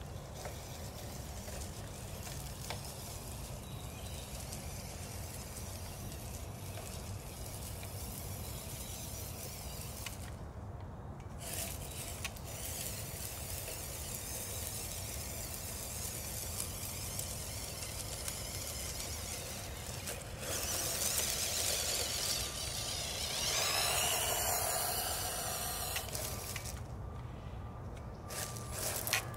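1/12-scale FMS Toyota FJ45 RC crawler driving over loose pebbles: its electric motor and drivetrain run with a steady hiss. The sound cuts out briefly about ten seconds in and again near the end, and grows louder for several seconds past two-thirds of the way, with a rising and falling whine.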